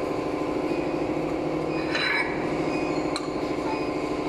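Steady drone of running machinery, with a light metal clink about three seconds in as an aluminium plate is handled into the cup filler's mould ring.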